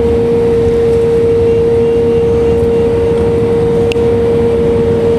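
Jet engine noise heard inside an Airbus airliner's cabin during the climb after takeoff: a loud, steady rush with a constant mid-pitched hum over it. A single faint click comes about four seconds in.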